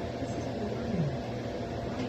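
Steady fan-like hum and hiss in a kitchen, with a short low tone that falls in pitch about a second in.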